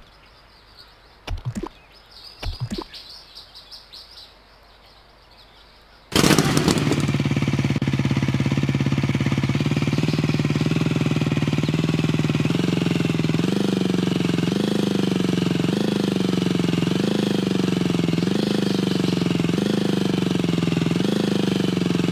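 A few sharp clicks, then about six seconds in a toy vehicle's electronic engine sound effect switches on and runs loudly and steadily, its pitch rising and dropping back about once a second like a revving motor.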